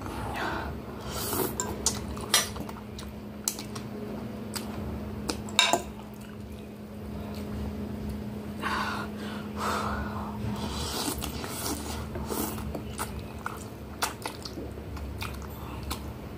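Eating instant noodles with a fork: the fork clinks against a glass dish with many sharp clicks, between bouts of chewing.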